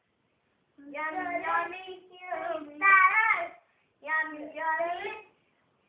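A young child singing a song in a high voice, in three short phrases with brief pauses between them.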